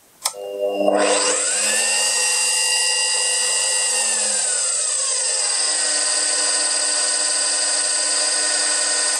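Bosch PBD 40 drill press switched on with a click, its motor spinning up within about a second and then running steadily with a high whine. One tone in the whine glides down about halfway through.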